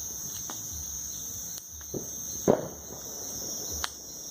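Crickets chirring steadily in a high, even drone, with a few short sharp pops and knocks scattered through; the loudest comes about halfway through and a thin crack near the end.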